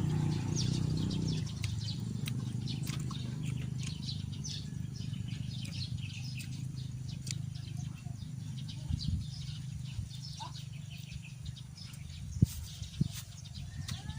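Birds chirping in short, scattered calls over a steady low background noise, with two sharp knocks near the end.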